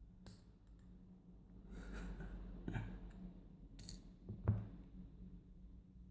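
Faint scattered clicks and small knocks of a Dom euro lock cylinder and small metal tools being handled during disassembly, the loudest about four and a half seconds in, over a faint steady hum.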